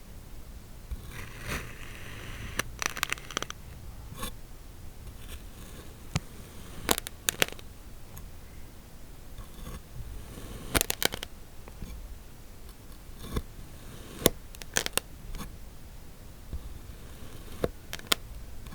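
Kinetic sand being cut and crunched with a blade: sharp crunches and scrapes at irregular intervals, several in quick pairs or clusters.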